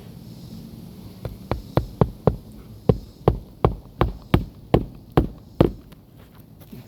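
Hammer driving roofing nails into an asphalt shingle: about a dozen sharp strikes in a steady rhythm of two or three a second, starting about a second in and stopping near the end.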